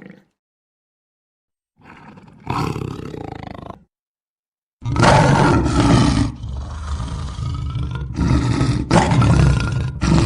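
Big cat roars: a call of about two seconds near the start, then after a short silence a loud run of rough roars from about five seconds in, broken by brief pauses.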